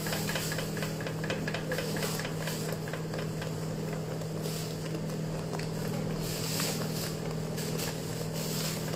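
Silicone spatula stirring and scraping melted marshmallow and butter around a stainless steel bowl in repeated strokes, over a steady low hum.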